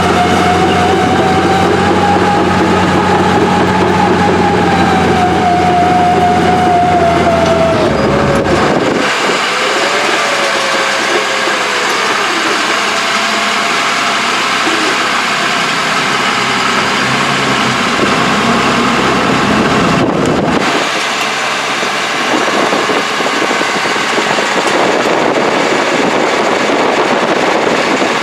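Old Caterpillar heavy equipment diesel engine running, with a wavering whine over a deep rumble. The rumble drops away about eight seconds in, leaving a quieter mechanical running sound.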